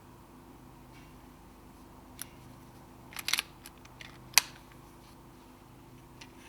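A few sharp mechanical clicks from handling an air rifle: a quick cluster a little past three seconds in and the sharpest, loudest snap about four and a half seconds in, over a low steady hum.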